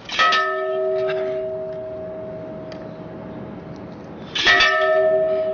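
Brass ship's bell struck twice, about four seconds apart, each stroke ringing on and slowly fading, rung as a salute to an arriving warship.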